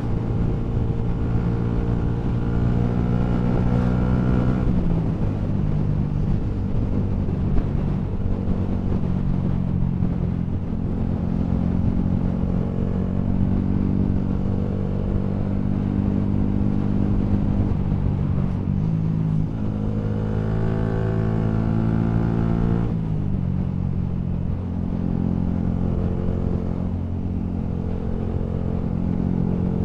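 Yamaha MT-125's single-cylinder engine, fitted with a Scorpion full-system exhaust, riding under way with steady wind rumble. The engine note climbs slowly and drops sharply at each upshift, about four and a half seconds in and again around nineteen and twenty-three seconds.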